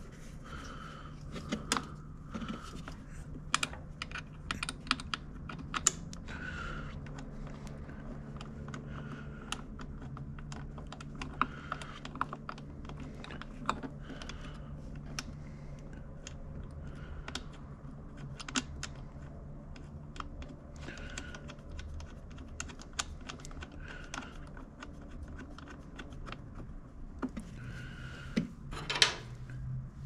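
Scattered light clicks and taps of small metal parts and hand tools as a generator carburetor is reassembled, with a louder clatter near the end. A steady low hum runs underneath.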